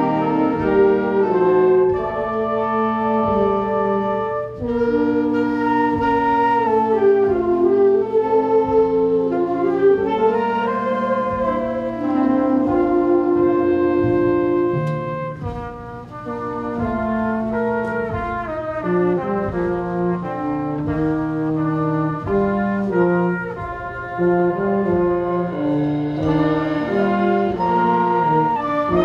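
High school band playing a holiday tune, the brass leading with held chords that change every second or two; it softens briefly about halfway through.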